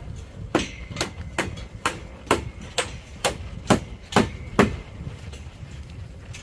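Hammer blows on a building site, a steady run of about ten strikes at roughly two a second, stopping a little over halfway through.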